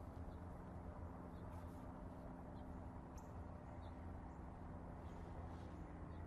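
A faint, steady low hum with a few short, faint bird chirps scattered through it.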